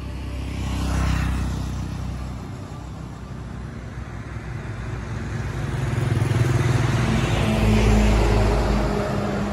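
Road traffic going by on a town street. One vehicle passes about a second in, then a motorcycle engine grows louder and goes by near the end.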